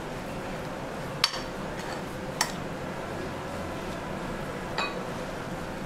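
A steel spoon clinks three times against a glass mixing bowl while stirring a thick semolina and curd mixture. The last clink rings briefly. A steady low hiss runs underneath.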